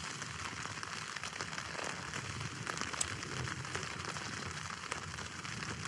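Light rain pattering steadily: a fine hiss with scattered small ticks.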